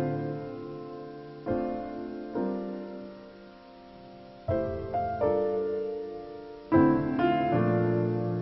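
Background piano music: soft chords struck every second or two, each ringing and fading away.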